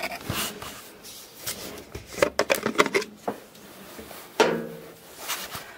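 Clothes rustling and dropping into the drum of a top-load washing machine, with scattered irregular clicks and knocks. One louder knock with a brief ring comes about three-quarters of the way in.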